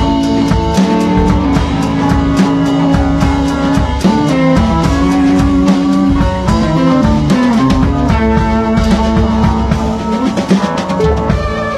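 A live rock band playing an improvised jam: a drum kit beats steadily under sustained guitar notes.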